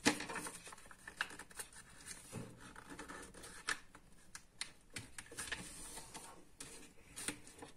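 A sheet of paper being folded by hand on a wooden tabletop: soft rustling and crinkling, with scattered short ticks and taps as the folds are pressed down.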